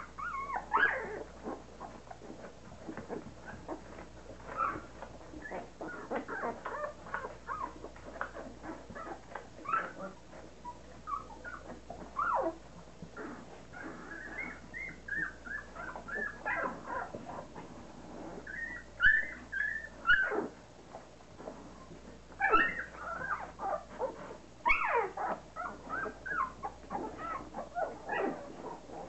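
Young nursing puppies whimpering and squeaking, many short high-pitched squeals in clusters, some of them rising and falling in pitch.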